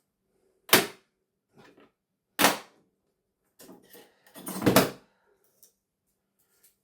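Knocks and clatter of hard television parts being handled and set down: a sharp knock about a second in, another at about two and a half seconds, and a louder run of clatter near five seconds.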